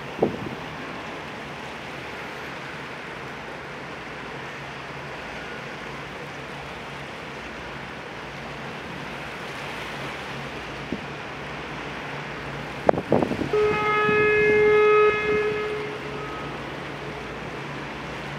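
A ship's horn blows one steady blast of about two seconds, a single pitched tone with many overtones, over a steady wash of wind on the microphone and open-water noise. There is a short knock at the start and another just before the horn.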